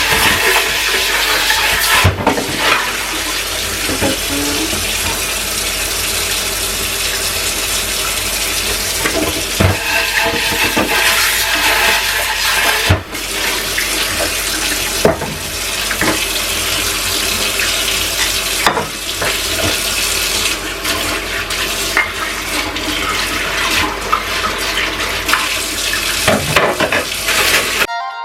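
Kitchen tap running steadily into a sink while dishes are washed by hand, with occasional knocks and clinks of dishes against the sink.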